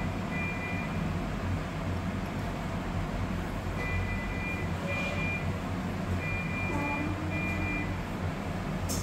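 Steady low background rumble like road traffic, with about five short electronic beeps, each two high tones sounding together: one near the start, then a gap of a few seconds, then four more in the second half.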